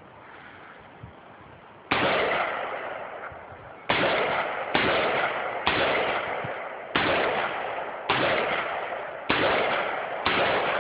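A firearm shot repeatedly, about eight shots at a steady pace of roughly one a second, starting about two seconds in; each shot rings out with a long echoing tail.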